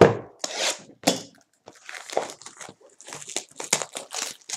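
Cellophane shrink-wrap being torn and crinkled off a sealed box of baseball cards, an irregular crackling, after a single knock at the start as the box is set down.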